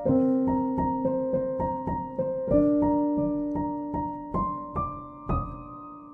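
Background piano music: a gentle melody of single struck notes, about three a second, each ringing and fading.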